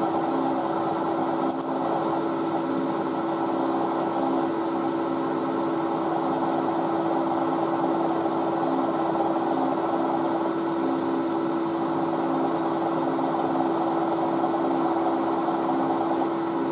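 Milling machine spindle running steadily with a drill bit starting into a cast alloy oil block. A steady motor hum with a fainter note that pulses regularly.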